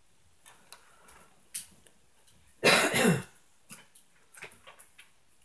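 A person coughing twice in quick succession, loud, about two and a half seconds in, with a few faint knocks and clicks around it.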